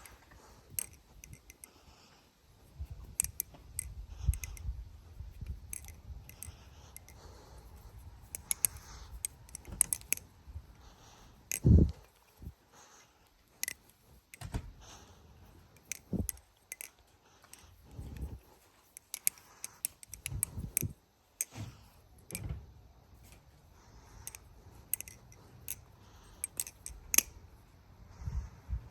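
LDY Sirius V3 balisong being flipped: its aluminium handles and steel blade click and clack against each other at an irregular rhythm as it swings on its bushing pivot, with a few duller knocks, the loudest about twelve seconds in.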